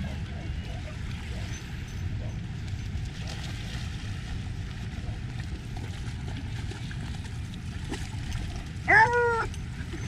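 A dog gives one short, loud whine about nine seconds in, rising and then falling in pitch, over a steady low rumble of wind and water.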